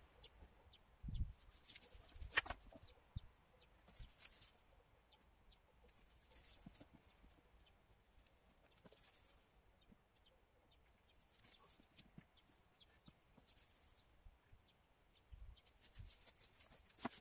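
Near silence outdoors, broken by faint rustling and a few soft thumps as soil is worked by hand.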